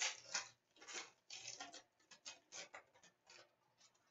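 Trading card foil packs and cards handled: a run of short, irregular crinkles and clicks as the hockey card packs are picked up and their cards sorted.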